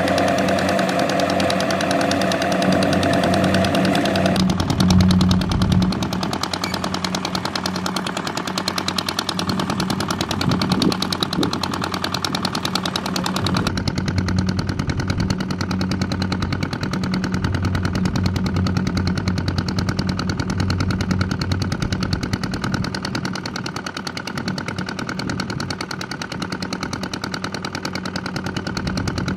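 Engine of a rice-harvesting tractor running steadily with a fast, even pulsing. The sound changes abruptly about four seconds in and again about halfway through.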